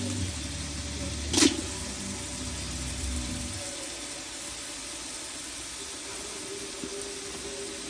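Crab frying in a pot over a wood fire, a steady sizzle. A low rumble fades out about halfway through, and a single sharp knock sounds about a second and a half in.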